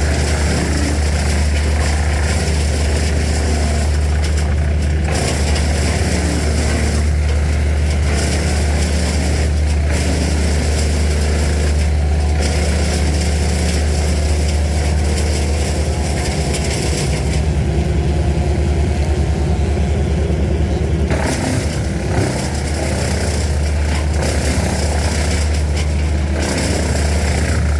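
An engine running steadily at an even speed, with a heavy low hum.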